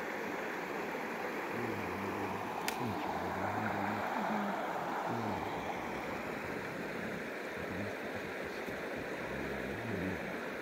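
Shallow river running over stones: a steady rush of flowing water. Faint low notes sound slowly underneath, and there is a single sharp click a few seconds in.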